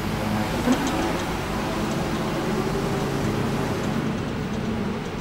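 CAT Mitsubishi FBC18N 36-volt electric forklift driving, with a steady hum from its electric motors and one short knock a little under a second in.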